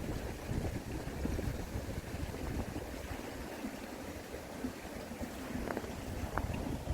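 Stream water running under and between ice in a frozen mountain valley, with wind rumbling on the microphone at times.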